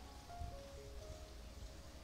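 Soft background music: a slow melody of long held notes.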